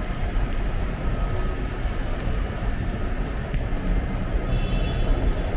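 Busy city street ambience: a steady low rumble of traffic with a noisy background hum and no single event standing out.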